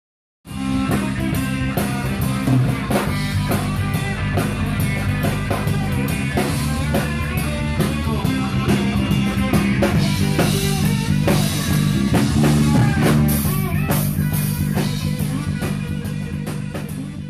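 Rock music with guitar and drums, an instrumental stretch without singing. It starts abruptly about half a second in and fades out near the end.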